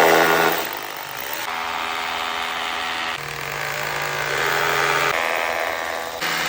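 A power tool's motor running steadily over a loud hiss, its pitch jumping to a new level every second or two.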